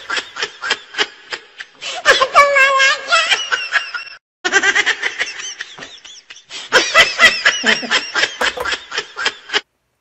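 A man laughing in repeated bursts with his mouth full, over the crackle of crispy chicharon being chewed. The sound breaks off briefly a little after four seconds in.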